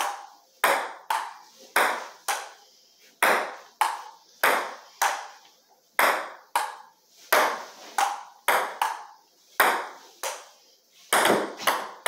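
Ping pong rally: the ball knocking against paddles and the table top in a steady back-and-forth, a sharp click about every half second, each with a short ringing tail.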